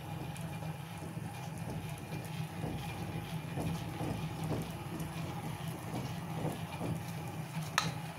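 Homemade treadle lathe running off a Singer sewing-machine treadle, its large disc pulley and spindle spinning with a steady mechanical rumble. Faint knocks from the treadle and belt drive come at roughly every half second to a second, and a single sharp click sounds near the end.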